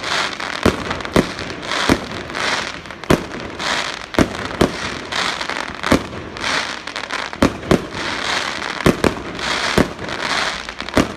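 Fireworks display going off, with sharp bangs of bursting shells about once a second and a crackling hiss between them.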